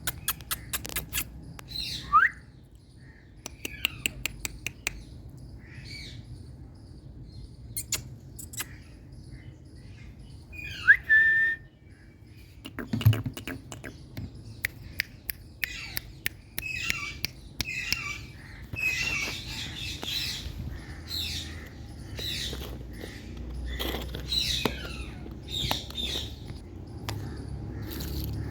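A pet Indian green parrot calling: repeated short squawks and chirps, with a sharp rising whistle about two seconds in and again about eleven seconds in. Short clicks are scattered throughout.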